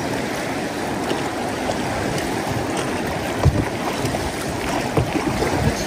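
River current rushing and lapping around a drifting boat, with a few low knocks, the strongest about three and a half seconds in.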